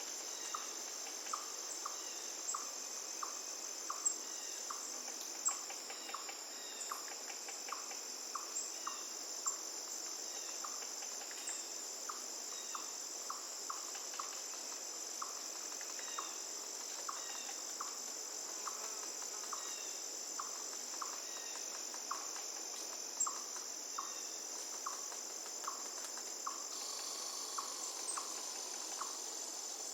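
Steady high-pitched insect chorus of crickets or cicadas, with a short chirp repeating almost twice a second, over a faint even hiss of running water.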